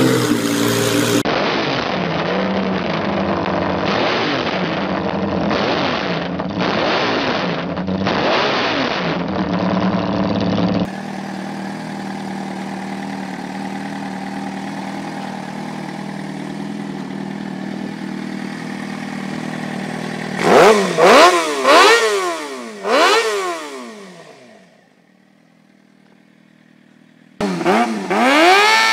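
Motorcycle engines in several short clips. First a multi-cylinder bike engine revs. Then a custom scooter-framed bike's inline-four engine idles steadily, gives a few quick rising and falling revs about 20 seconds in, dies down to a brief lull, and revs up again near the end.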